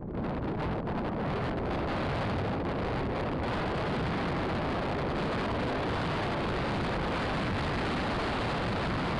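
Steady rushing wind noise on the microphone, starting abruptly, with a few sharp buffets in the first few seconds.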